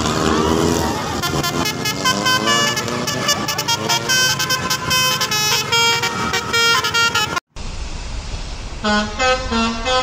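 Telolet basuri musical bus horn playing a quick melody of short stepped notes after an opening pitch sweep. Near the end, after a brief cut, a second bus horn starts another tune on lower notes.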